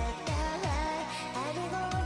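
Background song with a gliding melodic lead line over deep bass drum hits that slide down in pitch, two of them close together near the start and another just before the end.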